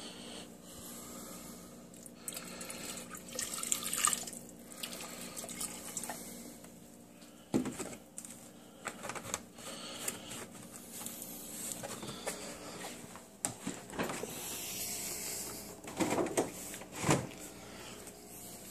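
Milk being poured from a plastic jug into a saucepan of soup: a pouring, splashing run of liquid, with a few sharp knocks as the jug and its cap are handled.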